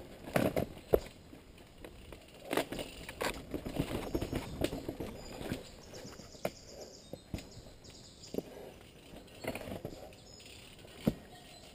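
Mountain bike riding down a dirt singletrack: irregular knocks and rattles as it goes over roots and bumps, with tyre noise on the dirt in between.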